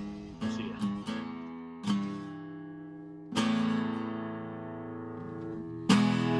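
Background music: acoustic guitar chords strummed and left to ring, a few quick strums early on and then single chords about every two seconds.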